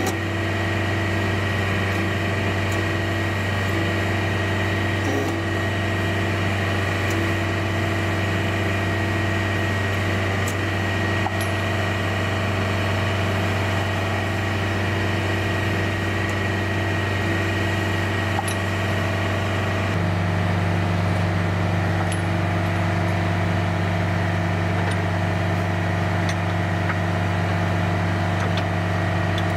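Military diesel vehicle engine idling steadily, its tone shifting slightly about twenty seconds in, with a few faint metallic clicks now and then.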